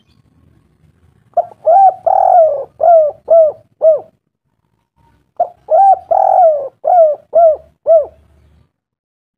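A bird calling: two series of about six quick arched notes each, the second series coming about four seconds after the first.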